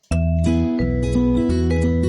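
Outro music with plucked guitar-like notes over a pulsing bass, starting abruptly a moment in.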